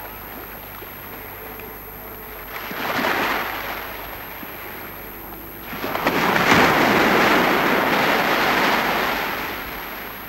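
Ocean surf washing up a flat sandy beach: a short surge of wash about three seconds in, then a longer, louder one from about six seconds that fades away near the end.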